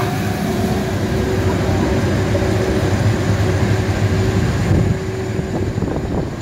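Icon roller coaster train moving off along the track, with a steady rumble and a hum that stops about five seconds in.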